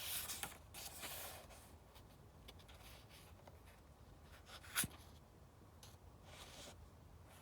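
Paperback book pages rustling as a page is turned, soft swishes in the first second or so and again near the end, with one sharp tap about five seconds in.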